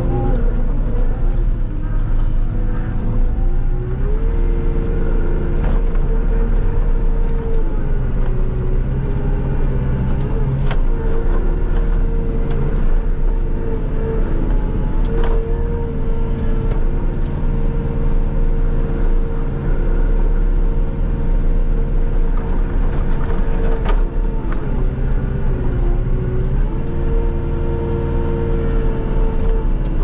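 Skid-steer loader engine running steadily under load while pushing snow with a snow-pusher box. Its pitch steps up and down a few times as the machine works.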